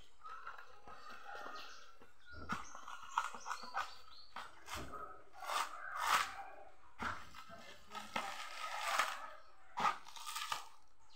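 Coconut husk being torn off on a pointed husking stake: a run of irregular ripping and crunching sounds as the fibrous husk is pried away, some sharper cracks among them.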